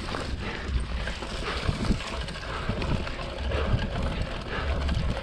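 Mountain bike rolling fast along a dirt forest trail, tyres on dirt and dry leaves, with wind rumbling on the mounted camera's microphone and scattered knocks as the bike goes over bumps.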